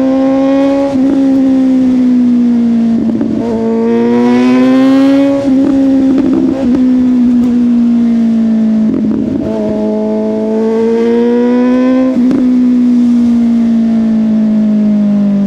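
Suzuki GSX-S750's inline-four engine running through a Yoshimura exhaust while riding. Its note rises and falls gently, with several brief breaks in between.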